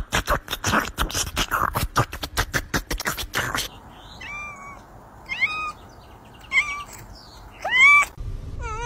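A puppy eats noisily from a metal bowl of white granules, with rapid crunching for the first three and a half seconds. Then a cat meows four times, short calls about a second apart, the last longest and loudest.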